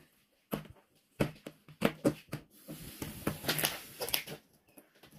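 White homemade slime being pressed and squeezed by hand on a wooden tabletop: irregular short wet squelches and pops, starting about a second in after a brief pause.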